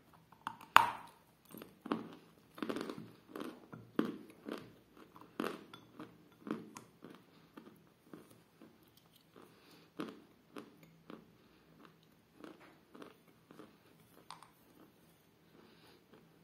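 A person bites into a lump of 'Damsky Kapriz' edible chalk with one sharp crunch about a second in, then chews it with steady crunching, about two chews a second. The crunching grows softer in the second half as the soft chalk breaks down.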